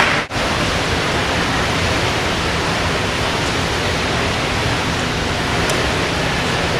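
Steady rushing hiss of water in an indoor pool hall, even and unbroken apart from a brief dropout about a quarter second in.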